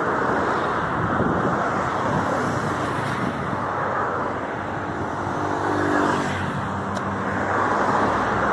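Busy road traffic, a steady stream of cars passing close by. An engine hum stands out briefly about five to six seconds in.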